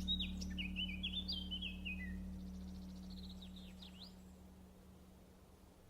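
Small birds chirping in quick runs of short notes, over a steady low hum, the whole fading out.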